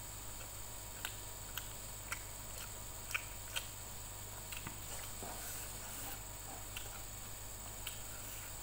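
Quiet eating sounds: a few short, sharp smacks and clicks of chewing, with fingers picking rice off a paper wrapper, over a steady low hum.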